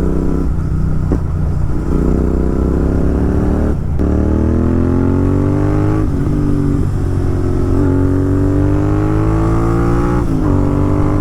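Royal Enfield Continental GT 650's parallel-twin engine through a loud Red Rooster aftermarket exhaust, accelerating while riding: the engine note climbs in pitch, drops sharply at a gear change about four seconds in, then climbs again, with another shift near the end.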